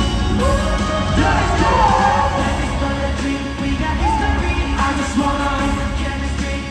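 K-pop song performed live: a male voice singing gliding lines over a loud backing track with heavy bass.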